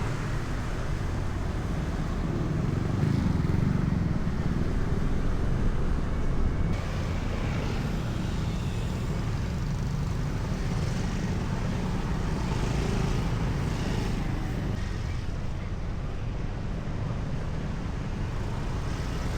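Road traffic passing on a street: a steady rumble of vehicles, a little louder from about three to seven seconds in.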